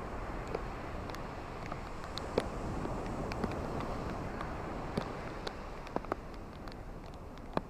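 Rain falling with a steady hiss and scattered sharp ticks of single drops, over a low wash of surf that swells a little midway and eases off toward the end.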